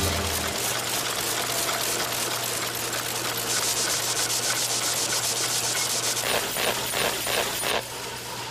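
Machinery running: a steady hum under a noisy hiss, with a fast, even clatter from about three and a half to six seconds in, then slower rhythmic knocks.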